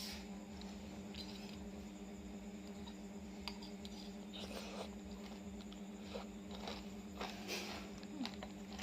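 Faint scattered taps and rustles, growing more frequent toward the end, over a steady low hum.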